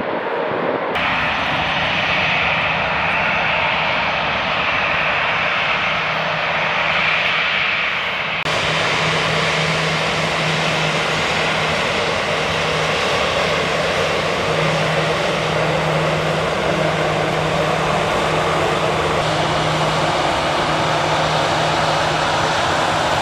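Airliner engines running steadily: a continuous noise with a low droning hum and a higher whine. The sound changes abruptly about one second in and again about eight seconds in.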